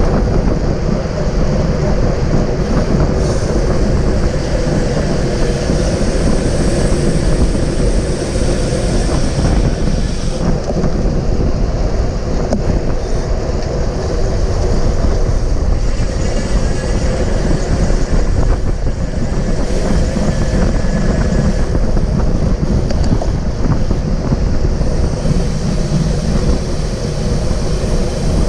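Steady rushing wind buffeting a GoPro's microphone while the rider is moving at racing speed on a road bike.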